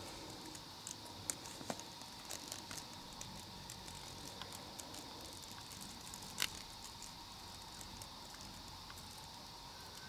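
Night-time rainforest insect chorus: a steady high buzzing with a fainter steady lower tone beneath it, dotted with scattered short clicks and ticks, the sharpest about six seconds in.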